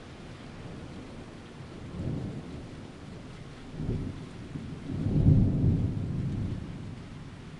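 Thunder rumbling: a low rumble that swells three times, about two seconds in, about four seconds in, and loudest a little past five seconds in, then dies away.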